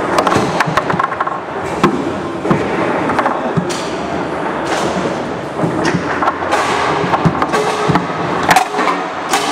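Foosball table in fast play: the hard ball knocking against the plastic men and the table walls, with rods sliding and clacking in their bearings, giving many sharp, irregular knocks. The loudest cluster of knocks comes about three quarters of the way in.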